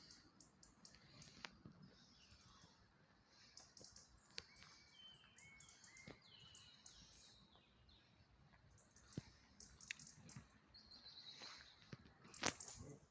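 Small birds chirping faintly, with a run of short whistled notes about four to seven seconds in. A few sharp clicks near the end.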